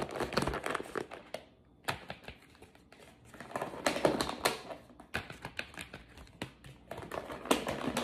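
Plastic meal-prep containers being handled: clear plastic lids clicked onto black containers and the containers knocked and set down on a stone counter, heard as bunches of sharp clicks and taps with short pauses between.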